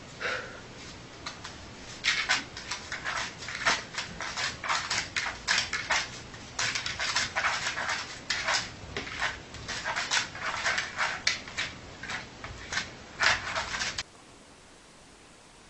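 A sleeping dog snoring in rattly runs of short snorts that come in groups every couple of seconds. The snoring breaks off near the end.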